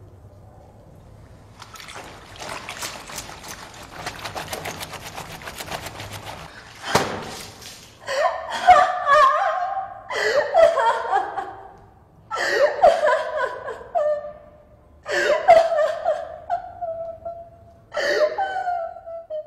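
A person, high-voiced, crying in loud sobbing bouts about two seconds long, with breaks for breath between them. The last bouts trail off into a held wail. Before the crying starts there is a few seconds' dense patter of clicks.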